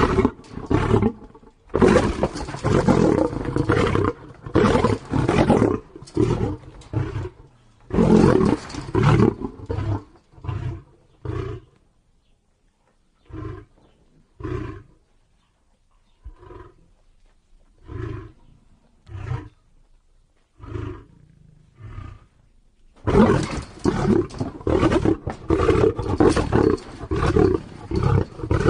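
Lion roaring repeatedly: loud, drawn-out roars, then a series of short grunts about once a second midway, then loud roaring again near the end.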